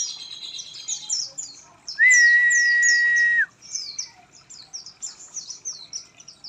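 Oriental white-eye (pleci) singing a rapid twitter of high, falling chirps. About two seconds in, a loud steady whistle-like tone holds for about a second and a half, then stops.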